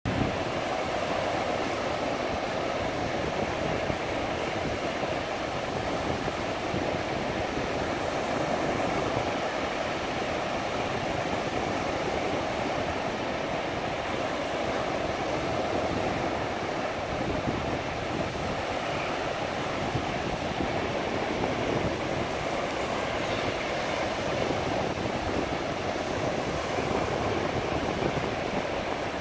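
Sea surf breaking and washing up a sandy beach: a steady, unbroken rushing noise.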